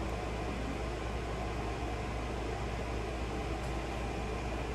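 Steady low hum and hiss of room background noise, with no distinct sounds in it.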